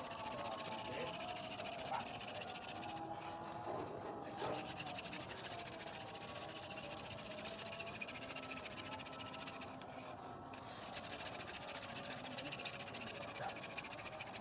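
Wooden hand-drill spindle spun fast back and forth in the notched socket of a wooden hearth board: a steady dry rubbing, wood grinding on wood. It breaks off briefly about three and ten seconds in. The friction is grinding out black char dust into the notch, the stage of building an ember.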